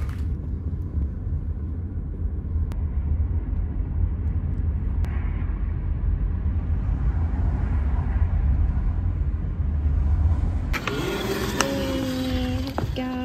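Car cabin noise from the back seat of a moving car: a steady low rumble of engine and road. About eleven seconds in it cuts off abruptly and gives way to short pitched tones.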